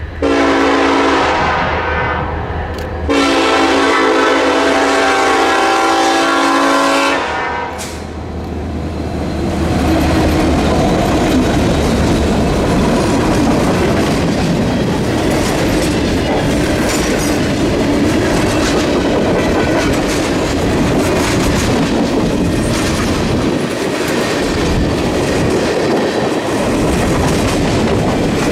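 A freight train's locomotive air horn sounds two long blasts over the low drone of its diesel engine. Then a string of tank cars and covered hoppers rolls past with a steady rumble and clickety-clack of wheels over the rails.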